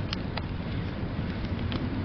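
Wood fire crackling, with three sharp pops, over a steady low rumble of blizzard wind.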